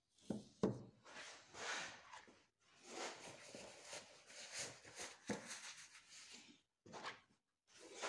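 Foil-wrapped wooden handle blank knocked down onto a cardboard-covered workbench under a second in, followed by several seconds of rustling and rubbing and a few more light knocks.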